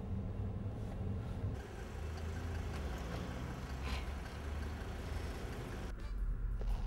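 A car engine idling, heard as a steady low rumble with street noise, growing heavier about six seconds in.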